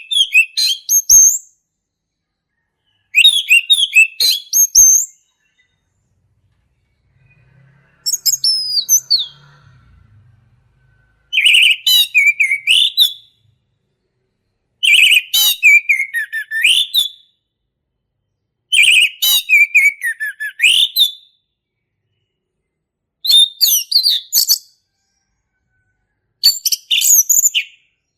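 Male orange-headed thrush singing loud, clear 'ngeplong' song. Each rich, fast-warbling phrase lasts about two seconds and comes every three to four seconds, with short silences between.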